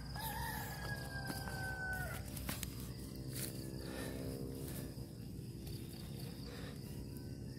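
A single long call from a farm animal, held about two seconds and falling slightly at the end. Under it runs a low steady hum, with scattered soft clicks and rustles as soil clods and dry rice straw are broken up by hand.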